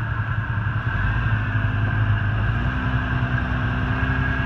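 Jeep Cherokee XJ's engine running steadily under load as it crawls through deep mud, its note rising slightly about a second in.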